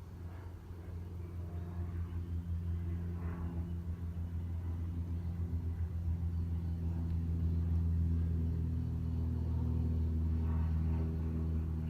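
An engine running with a steady low drone that grows gradually louder over the first several seconds, then holds.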